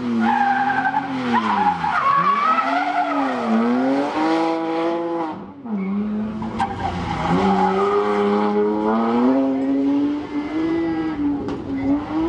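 Rally car engine revving hard, its pitch dropping and climbing again several times as the driver lifts and changes gear, then holding a high steady rev in the second half.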